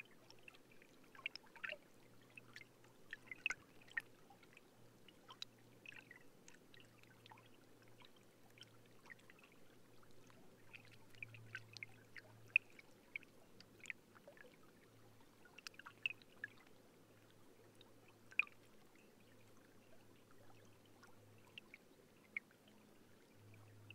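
Faint trickling water: sparse, irregular drips and small plinks over a steady low hum.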